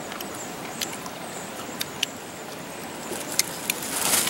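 Steady rushing of flowing stream water, with a few scattered sharp clicks. Near the end comes a brief crinkle of a plastic bag as a hand reaches into it for rice.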